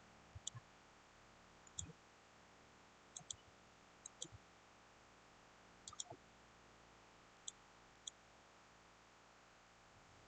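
Computer mouse clicking: about eight short, sharp clicks spaced a second or two apart, some in quick pairs like double-clicks, over faint room hiss.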